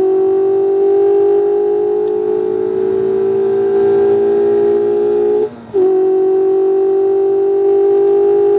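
2019 Mazda MX-5 RF's four-cylinder engine heard from inside the cabin, pulling hard with its note slowly rising. About five and a half seconds in it breaks off briefly and comes back a little lower, then climbs again: a quick upshift under full throttle.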